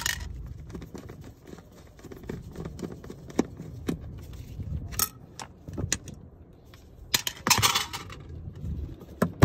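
Small metal clicks, clinks and scrapes from a screwdriver prying at a car's fuel pump access cover, with a longer scraping rustle about seven seconds in.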